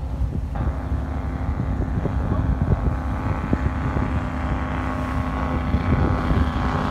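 Motorboat engine running steadily, with wind buffeting the microphone.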